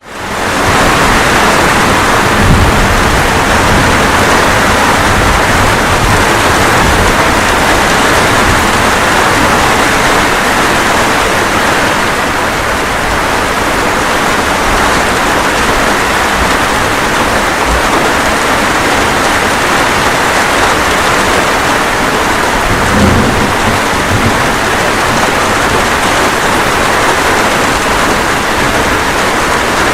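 Steady rain falling as a thunderstorm rolls on, with low thunder rumbles shortly after it begins and again about three quarters of the way through. The rain fades in at the very start.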